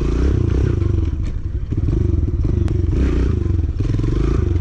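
Kawasaki pit bike engine running and revving up and down as the throttle is worked, recorded from on the bike. Its note drops briefly about a second and a half in, then picks up again. There is one sharp click in the middle.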